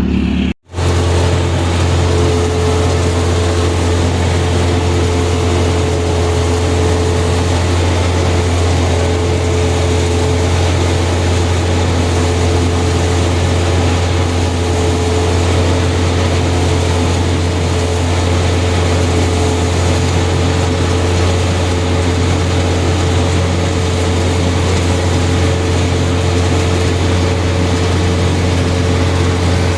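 Combine harvester running steadily while cutting soybeans: a loud, even engine drone with a steady whine over it. The sound drops out for an instant just after the start.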